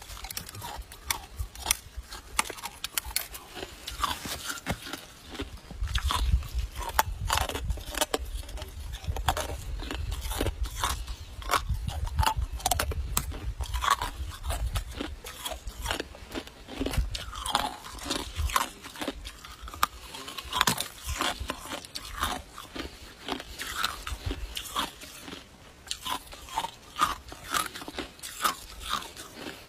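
Icicle ice crunching and cracking: a quick, irregular run of sharp crunches, with a low rumble underneath from about six to fifteen seconds in.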